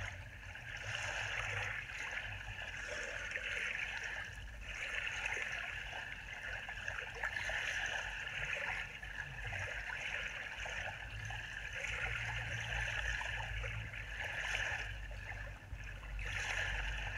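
Field recording of water sloshing and gurgling: a steady watery hiss that swells and eases every few seconds, with a low rumble underneath.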